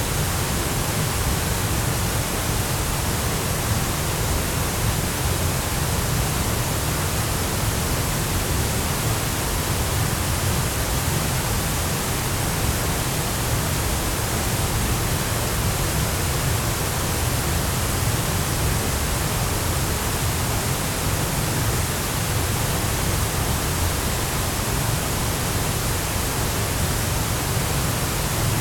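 Chōshi Ōtaki waterfall: a steady rush of falling water with a deep rumble.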